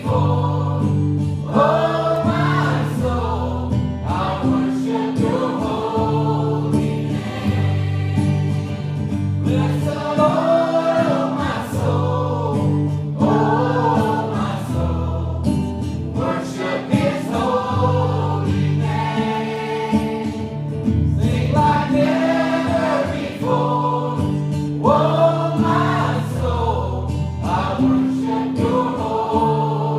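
A live gospel worship song: a man sings lead over his acoustic guitar while a choir sings with him. Steady low notes run underneath.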